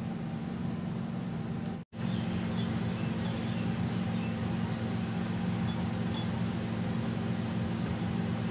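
Steady low hum throughout, which drops out for an instant about two seconds in. Over it come a few faint, light clinks as a hand in bangles and a ring works rice flour in a glass bowl.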